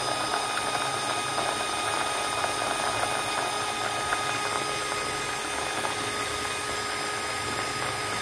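Electric mini chopper running steadily, chopping ginger: a constant high motor whine with a light rattle of ginger pieces against the blades and bowl.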